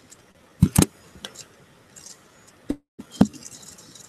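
A few sharp clicks and knocks against faint background hiss, two of them in a quick pair just under a second in and another pair at the end. The sound cuts out completely for a moment just before three seconds.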